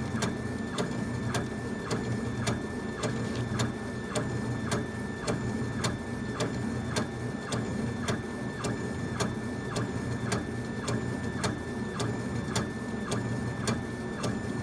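Laser engraver's head being driven back and forth across a wood faceplate as it engraves line by line. The motor whine breaks with a click at each turnaround, about every 0.6 seconds, in a steady rhythm.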